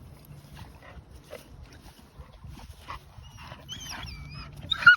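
Dogs whining, with high, wavering whines about three and a half seconds in, then a short, loud dog cry near the end.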